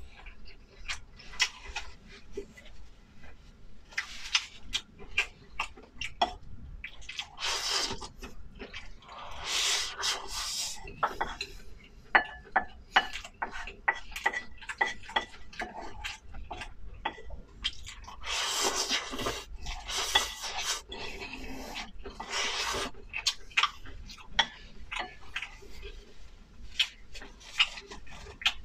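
Eating at the table: utensils clicking and tapping against a bowl, with bursts of close-up chewing and slurping.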